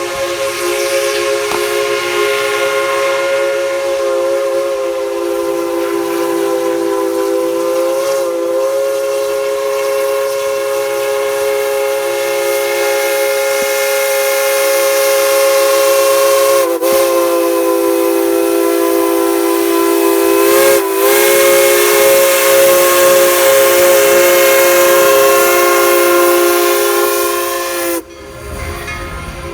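Tweetsie Railroad #190's steam locomotive whistle blowing one very long, loud chord of several steady tones, wavering briefly three times before cutting off abruptly near the end.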